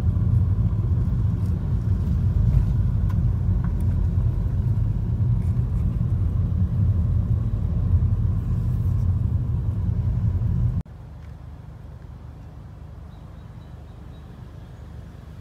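Car cabin rumble from the engine and tyres of a car driving slowly, a steady low drone. About eleven seconds in it cuts off suddenly to a much quieter steady outdoor background hiss.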